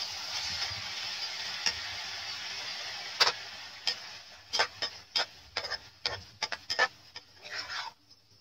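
Beef and onions sizzling in a frying pan while a metal spatula stirs them. From about three seconds in comes an uneven run of sharp clicks and scrapes of the spatula against the pan, and the sizzle fades. It all stops shortly before the end.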